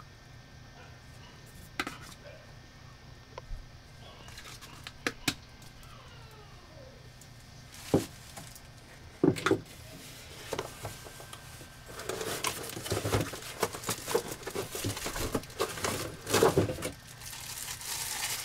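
Chrome shower parts handled on a tabletop: a few light knocks and clicks as pieces are set down and moved. From about twelve seconds in comes a few seconds of crinkling from a plastic bag as the shower arm is unwrapped.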